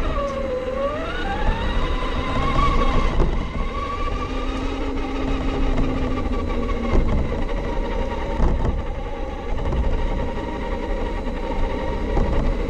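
Losi 22S-SCT RC short course truck's electric motor and gears whining, the pitch dipping briefly and then rising with speed before levelling off, over a heavy low rumble of tyres and vibration picked up by the body-mounted camera, with a few sharp knocks.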